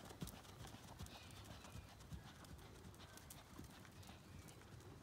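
Faint, rhythmic hoofbeats of a horse trotting on sand arena footing.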